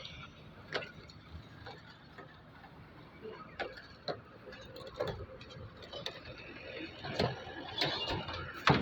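Irregular light knocks and clicks of hand work, spaced unevenly, coming more often near the end.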